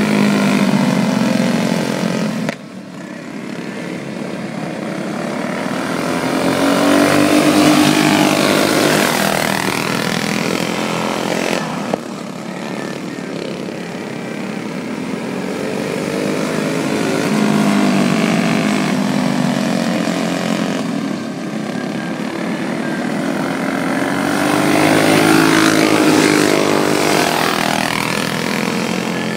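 A pack of dirt-track go-karts racing laps, their small engines swelling in pitch and loudness as the pack comes past and fading as it goes, about every eight seconds. Several engines overlap, each climbing and dropping in pitch with the throttle through the turns.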